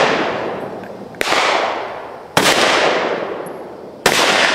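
Three single gunshots a little over a second apart, each followed by a long echo that fades away; the echo of an earlier shot is still dying out at the start.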